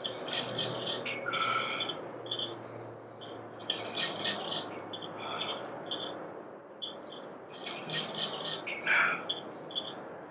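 Metal gym equipment rattling and clinking as a bar on an overhead cable is pulled down for lat pulldown repetitions. The jangling comes in bursts about every four seconds, once per rep, with lighter clicks between.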